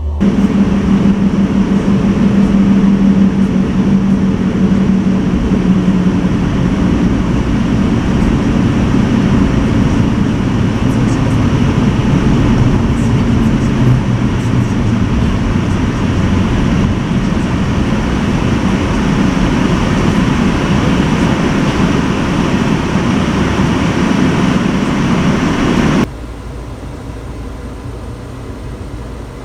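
Steady, loud running noise of an Alfa Romeo Giulietta, with a low hum that fades over the first several seconds. About 26 seconds in it drops abruptly to a quieter steady noise.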